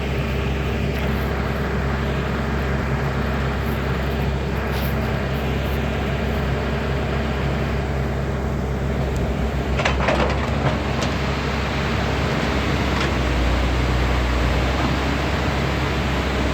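Excavator diesel engine running steadily under load, with a brief cluster of sharp clicks about ten seconds in and the low engine drone swelling a few seconds later.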